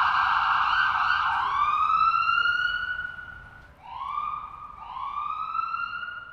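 Ambulance siren in a fast warble that changes, about a second in, to a slow rising wail that fades away. Three shorter, quieter rising wails follow.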